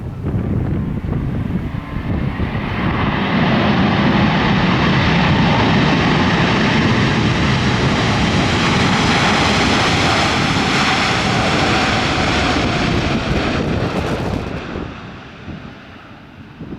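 Boeing 777 jet engines passing on a landing approach: the jet noise swells over a couple of seconds, holds loud for about ten seconds, then fades away near the end. Gusty wind buffets the microphone around it.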